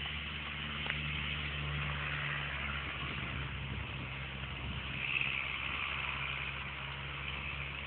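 A motor vehicle running steadily: a low engine hum under a hiss of road noise, a little louder about five seconds in.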